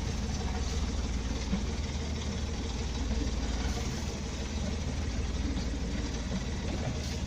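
Sailboat's auxiliary motor idling steadily at anchor, a low even hum with no change in speed.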